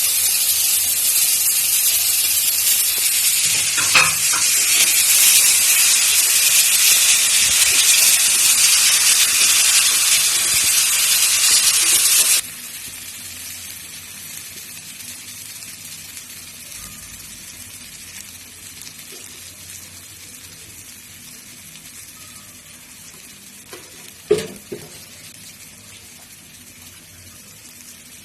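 Mashed tomatoes sizzling loudly in hot mustard oil with onion and green chilli while being stirred in the pan. About twelve seconds in the sizzle drops abruptly to a much quieter frying hiss, and two knocks are heard, one early and a louder one near the end.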